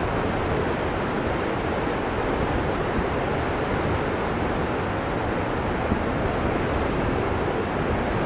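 Ocean surf breaking and washing on a beach: a steady, even rush of wave noise.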